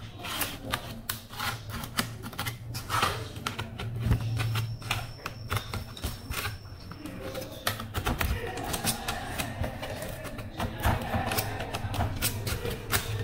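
Dense, irregular plastic clicks and taps as an HP EliteBook 840 G3 keyboard is pried out of the laptop's top case with a slim metal pry tool and fingernails, its keys and edge pressed and worked loose, over a steady low hum.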